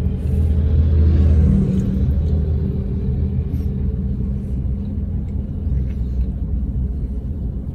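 Car engine running, a steady low hum heard inside the cabin, a little louder in the first second or two.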